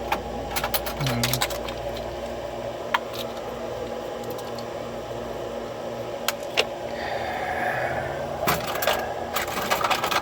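Small metal clicks and taps of a padlock and a lock shim being handled as the lock is worked on, with a short scrape about seven seconds in, over a steady low hum.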